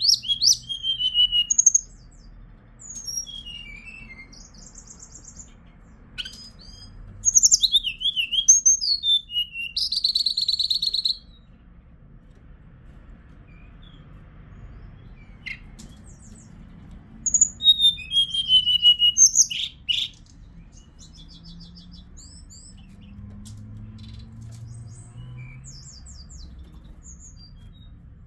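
Hill blue flycatcher (Cyornis whitei) singing in three bursts of quick, varied whistled phrases: one at the start, one about seven seconds in, and one about seventeen seconds in. The middle burst ends in a rapid, even trill about a second long. Between the bursts there are only a few faint chirps.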